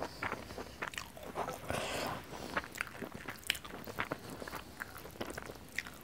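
Close-miked chewing of a person eating with her hands: irregular wet clicks and smacks of the mouth working a mouthful of rice and spicy fried beef lung.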